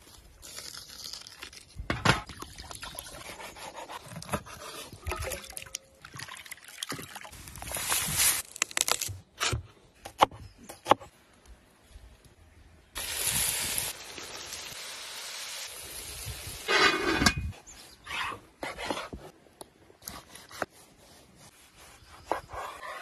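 Knife cutting and scraping through raw liver and heart on a wooden cutting board, with wet handling of the meat and scattered knocks. About halfway through comes a few seconds of steady liquid hiss.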